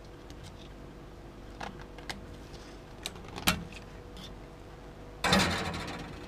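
Sharp metallic clicks as a snap ring is pried out of the overdrive servo bore of a Ford AOD transmission case. About five seconds in comes a louder metal clatter that fades over about a second.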